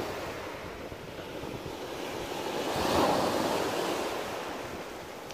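Sea waves breaking and washing over a pebble shore, swelling to a peak about three seconds in and then easing, with wind rumbling on the microphone.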